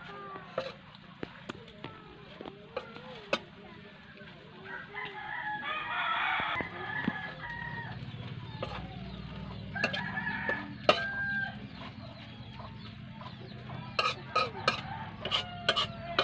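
A rooster crows about five seconds in, and chickens cluck shortly after the middle. Through it come sharp clacks of a utensil stirring greens in an aluminium wok.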